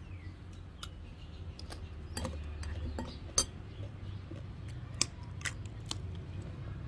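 Metal spoon clinking and scraping against a ceramic plate while stirring sliced young mango in a thick shrimp-paste chili sauce: scattered light clicks, with two sharper clinks about three and a half and five seconds in. A steady low hum runs underneath.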